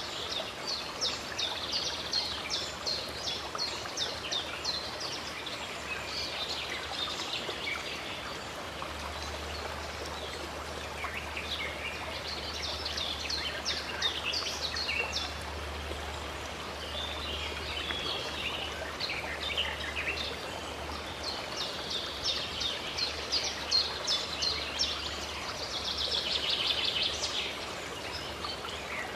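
Steady rush of running stream water, with small songbirds chirping over it in quick repeated notes and trills.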